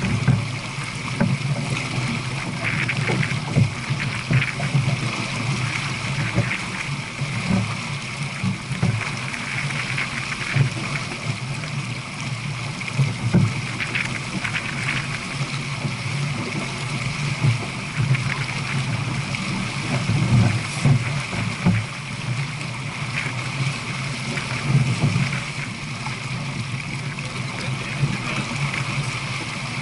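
Water rushing and splashing along the hull of a J/24 keelboat sailing downwind at about 7 knots: a steady wash with irregular louder splashes.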